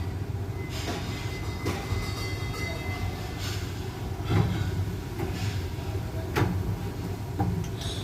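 Steady low machinery rumble with scattered knocks and clatter, about one a second, of objects and cabinet fittings being handled.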